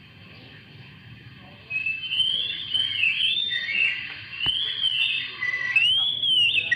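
Oriental magpie-robin (kacer) singing: a run of loud whistled phrases with sliding, arching pitch, starting about two seconds in.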